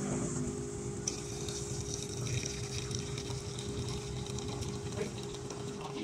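EVOACAS table-top coffee machine working through a latte cycle with milk powder: a steady motor hum, joined about a second in by a high hiss.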